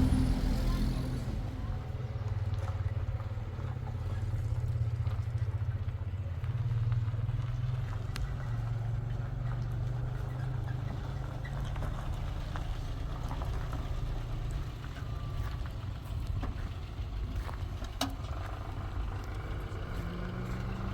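A vehicle's engine running steadily while driving: a continuous low drone with a few faint clicks and knocks.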